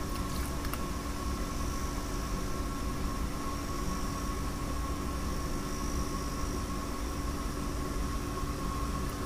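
A steady mechanical hum with a constant hiss and a few held tones, unchanging throughout.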